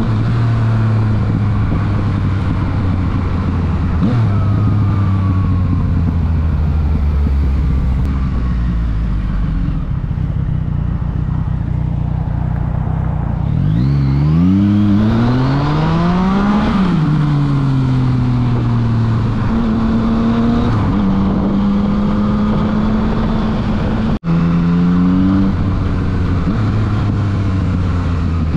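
Yamaha FZ-09's 847 cc inline three-cylinder engine through a full Akrapovič exhaust, on the move with wind rush. It runs steadily at first, then revs climb steeply for a few seconds about halfway through and fall away as the throttle closes. The engine settles back to steady running, with a split-second gap in the sound near the end.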